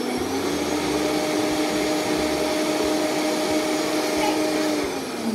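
Vitamix blender motor running steadily while grinding oats into flour. Its pitch steps up slightly about half a second in, then falls as the motor winds down near the end.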